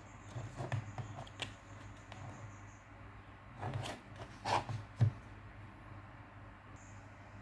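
Small die-cast toy paver being handled: scattered light clicks and rubs, a few louder clicks around four to five seconds in, over a steady low hum.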